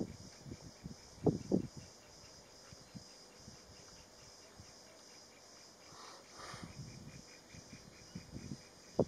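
Insects chirping steadily in a high, finely pulsing drone, with a few brief low rumbles about a second in and again near the end.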